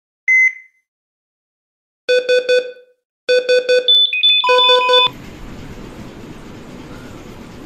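Electronic beeping: one short high beep, then two bursts of rapid pulsed beeps and a quicker run of higher tones. The beeping stops abruptly about five seconds in, and a steady low hiss follows.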